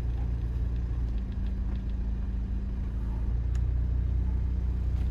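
A car engine running at low speed, a steady low hum heard from inside the vehicle.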